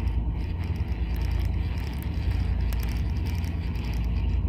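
Low, steady engine drone with a constant hum, unchanging throughout.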